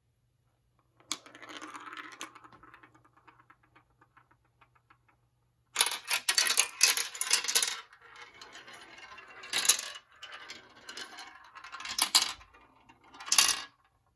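A plastic ball rolling and clattering through a plastic marble-run toy. First comes a softer rolling rattle about a second in that fades away. From about six seconds on there is much louder rattling and clicking as it drops through the tubes and chutes, with sharp clacks three times near the end.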